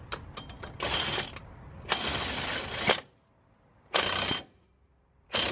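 Ratchet wrench clicking in short runs with pauses between them. A lug nut and washer are being run down to pull a new wheel stud into the axle flange.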